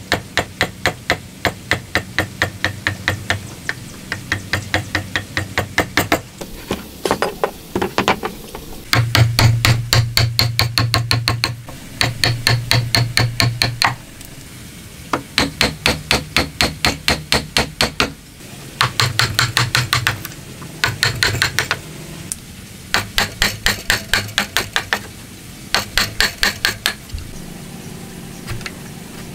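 A hammer driving a steel chisel into a hardwood block to chop out a joint: runs of quick, sharp blows, about four to five a second, broken by short pauses.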